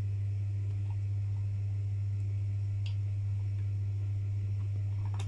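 A steady low electrical hum, with a faint click about three seconds in and another near the end as the battery connector is handled.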